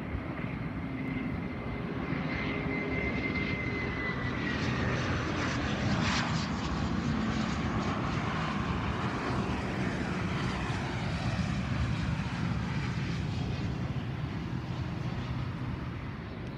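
Business jet's turbofan engines passing close on landing: a high whine that drops in pitch about three to four seconds in, over a steady jet roar that is loudest about six seconds in and then slowly eases.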